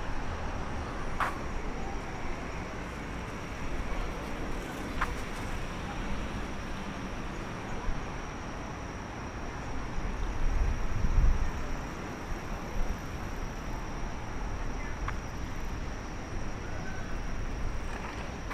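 Night-time city street ambience: a steady hum of road traffic, with a louder low rumble about ten seconds in, a few light clicks and a faint steady high tone.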